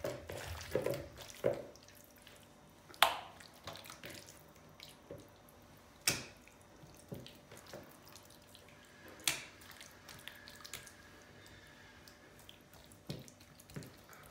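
Hands squishing marinated chicken pieces and laying them into a glass baking dish: soft wet squelches and drips, with three sharper wet smacks about three seconds apart.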